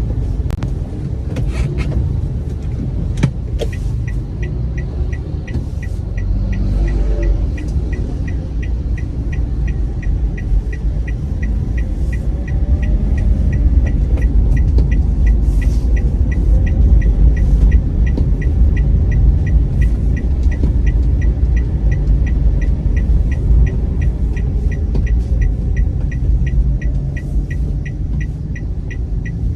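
Manual car's engine running low as the car pulls away from a stop with the clutch held part-way to avoid stalling, a steady low rumble that swells somewhat in the middle. A few sharp clicks come in the first few seconds, then the turn-signal indicator ticks evenly, about two to three times a second.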